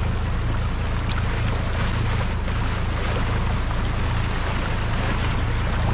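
A small sailing yacht's inboard engine runs at a steady hum while the boat motors through swirling water. Water rushes past the hull and wind hisses on the microphone.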